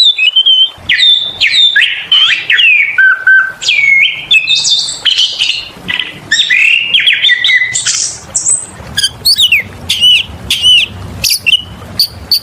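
Oriental magpie-robin (kacer) singing a fast, unbroken run of varied whistles, glides and chirps. In the second half the notes turn into quick, sharp up-and-down chirps.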